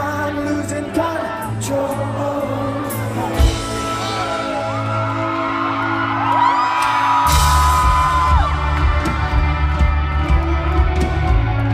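Live rock band playing, with a singer's voice over guitar and drums. The singer holds a long high note from about six seconds in, and just after seven seconds a cymbal crash and heavy bass come in and the band gets louder.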